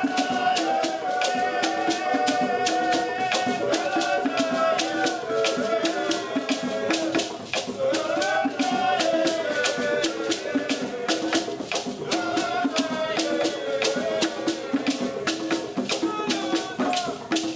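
Live hand-drum ensemble playing djembe-style drums in a fast, steady rhythm, with a gourd shaker rattling and voices chanting a melody over the drumming.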